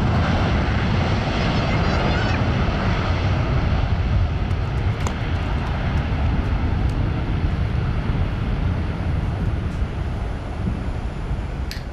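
Airbus A330-243's Rolls-Royce Trent 700 turbofans at takeoff thrust during the takeoff roll and rotation: a loud, steady, deep jet noise that slowly grows quieter as the airliner moves away.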